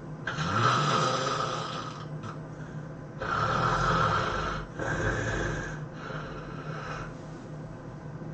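A person snoring heavily in their sleep: four long snoring breaths in a row, the last one fainter.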